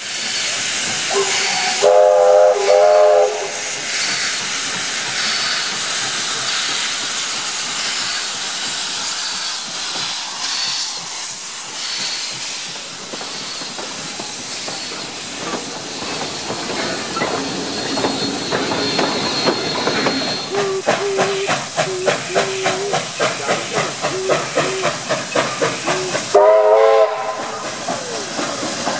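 Steam locomotive at work: a loud multi-tone steam whistle blast about two seconds in, steady hissing of escaping steam, then quick regular exhaust chuffs building as the engine hauls a train past, and a second whistle blast near the end.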